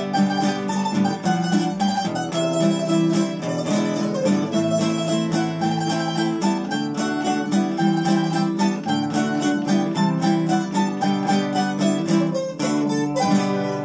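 Instrumental duet of a nylon-string classical guitar and a small double-course plucked string instrument, picking a melody over accompanying chords in G major. Near the end a strummed final chord is left ringing.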